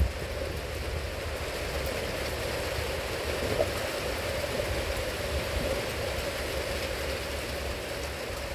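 Steady rain, heard from inside a horse stall.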